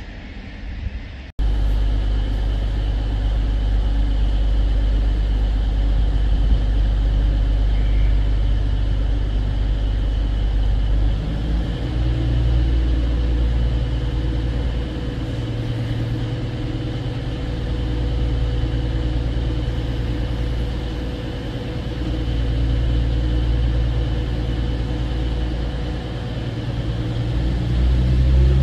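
Class 222 Meridian diesel multiple unit's underfloor diesel engines idling with a steady low rumble at the platform. The engine note shifts partway through. It rises near the end as the unit starts to move off.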